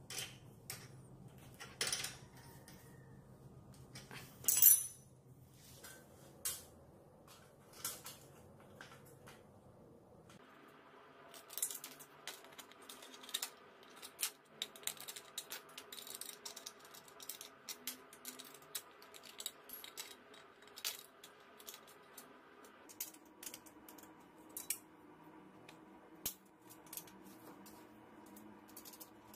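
Metal parts and small hand tools clicking and clinking as a chain tensioner bracket and bolts are fitted to a bicycle frame by hand, with one sharper clack about five seconds in.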